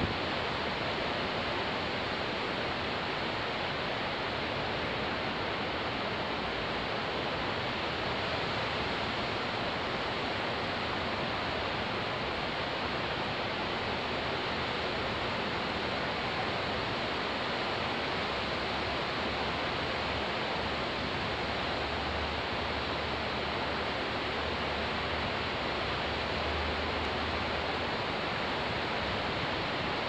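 Caspian Sea surf, a steady unbroken wash of waves with no single breaker standing out.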